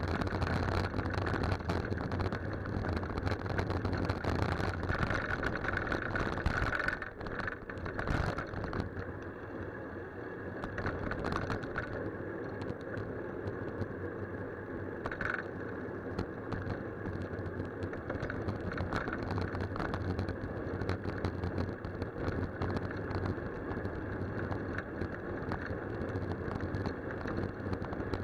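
Steady wind and road noise picked up by a bicycle's handlebar-mounted camera while riding, with frequent small knocks and rattles from the bars over the road surface; it is somewhat louder for the first seven seconds or so. Car traffic on the road blends into the noise.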